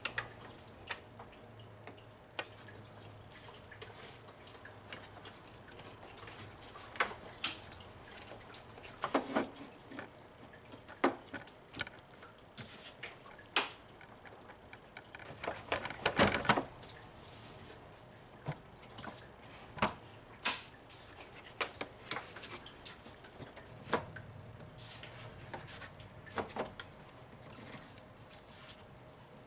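Irregular light clicks, taps and knocks of hand tools and metal parts being handled while the drive belt tensioner and idler pulley are worked on, over a faint steady low hum. The loudest knocks come about a third and two-thirds of the way through.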